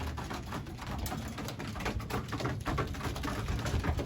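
Racing pigeons moving about in the loft: a run of light, irregular taps and shuffles, with some pigeon sounds.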